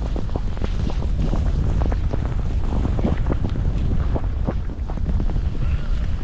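Wind buffeting the microphone during a downhill ski run, with irregular scraping clicks of skis moving over snow.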